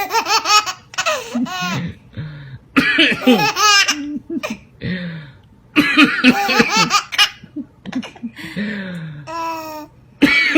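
A baby laughing hard in about four bouts with short pauses between them, laughing at someone's coughing.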